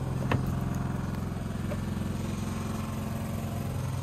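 Electric air compressor running with a steady hum, and a short click about a third of a second in as the car's rear door latch opens.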